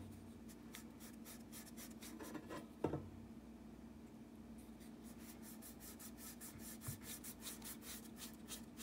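Paintbrush bristles scratching across bare pine wood as chalk paint is brushed on in quick back-and-forth strokes, faint and rhythmic, growing busier in the second half. There is a single knock about three seconds in, and a steady low hum underneath.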